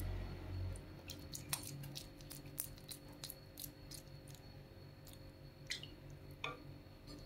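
Beef meatball paste squelching as it is squeezed up through the fist and scooped off with a metal spoon, with scattered faint clicks of the spoon and small wet sounds as the balls go into the water in the pan.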